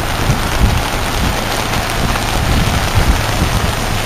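Steady rush of floodwater from an overflowing stream, mixed with heavy rain.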